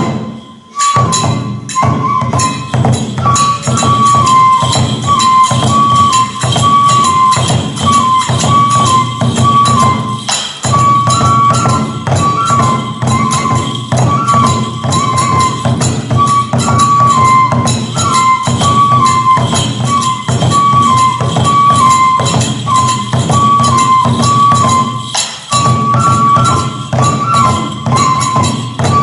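Kagura festival music: a bamboo flute plays a short, repeating melody over fast, steady taiko drum beats and clashing hand cymbals. The music drops out briefly just after the start.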